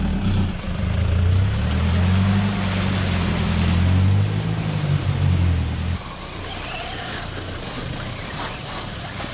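Toyota Hilux 4x4 engine running steadily under load as the truck crawls over rock. About six seconds in, it cuts to a quieter, rougher rushing noise.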